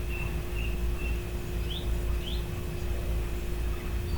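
Small bird chirping: a short high note repeated about twice a second, then two quick rising chirps near the middle, over a steady low hum.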